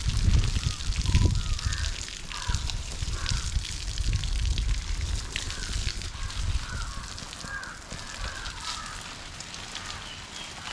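Water from a garden hose spraying onto plants and wet soil: a steady hissing spatter, louder in the first couple of seconds. Short repeated calls sound in the background.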